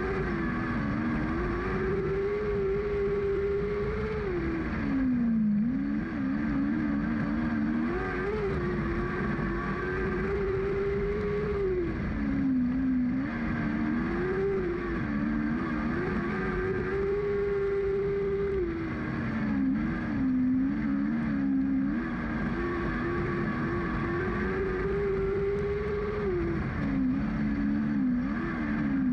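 Lightning sprint car's engine heard on board, revving high down each straight and dropping in pitch as the driver backs off into the turns. The cycle repeats about every seven seconds, once per lap of the oval.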